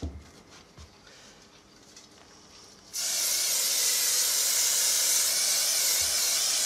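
Aerosol can of spray adhesive spraying in one long, steady hiss that starts abruptly about three seconds in, after a few faint handling knocks.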